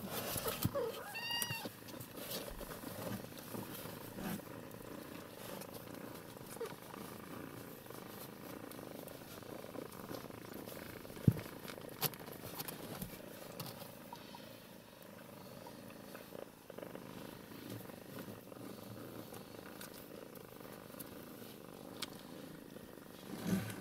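Domestic cats purring steadily as the mother cat nurses her kittens. A short, high call sounds about a second in, and a single sharp click about eleven seconds in.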